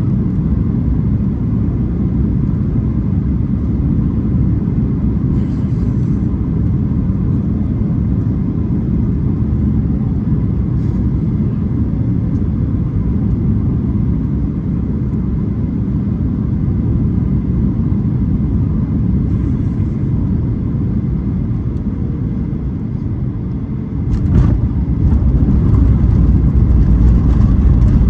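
Boeing 737 cabin noise: a steady low rumble of engines and airflow. About 24 seconds in there is a light knock, then a louder, deeper rumble, typical of the airliner touching down and rolling on the runway.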